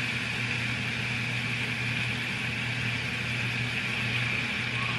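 Oxtails sizzling in an oil-lined pan, a steady hiss over a low, even hum.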